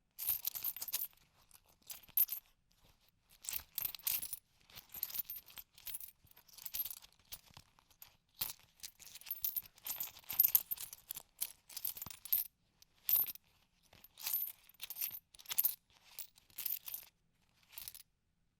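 Loose coins jingling and clinking against each other as fingers rummage through them in a wallet or coin purse, in irregular bursts with brief pauses between.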